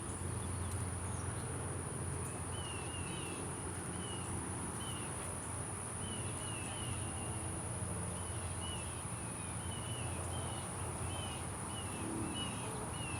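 A steady high-pitched buzz of insects, with a bird repeating short chirps about once a second over it and a low rumble underneath.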